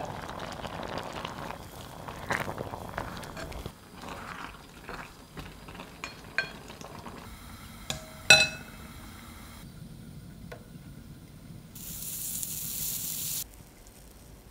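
Pot of rice on a gas stove: rice water foaming and bubbling while it is stirred with a spoon, with scrapes and light clinks. A sharp ringing clink about eight seconds in is the loudest sound, and a short hiss of about a second and a half comes near the end.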